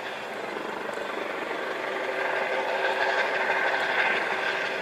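Coast Guard MH-65 Dolphin helicopter hovering over the sea: steady turbine and rotor noise with a constant hum.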